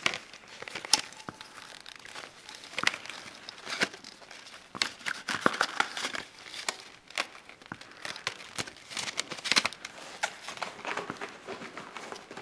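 Gloved hands handling a plastic card of toy ring caps and a cap-gun revolver: crinkling and rustling of the cap packaging, with scattered small clicks and taps.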